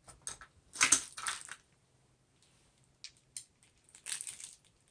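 Small metal quarter-inch screw connectors and their packaging being handled: scattered clicks and rustling, loudest about a second in, with a quiet gap before more clicks and rustling near the end.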